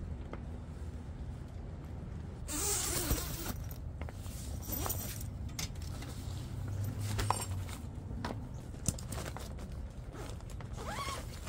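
Tent door zipper pulled open in a long rasping run about two and a half seconds in, followed by nylon fabric rustling and small clicks as a stuff bag is handled.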